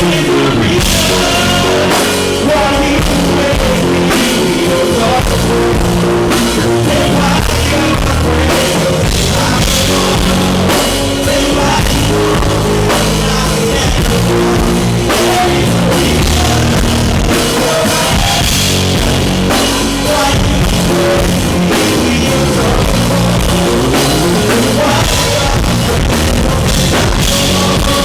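Live band playing a song loudly, with drum kit and a steady beat.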